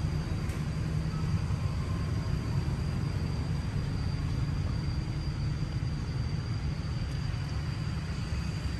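Steady low rumble of outdoor background noise, with a faint steady high-pitched tone above it.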